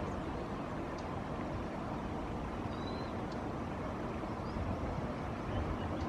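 Steady low rumbling outdoor background noise, with a couple of faint, short, high chirps about three seconds in.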